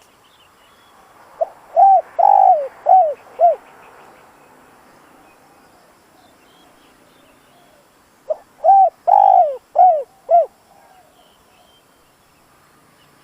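Spotted dove giving its cooing call twice, each phrase a short soft note followed by four falling coos, the second phrase about seven seconds after the first. This is a decoy bird's call of the kind used to provoke wild spotted doves into answering.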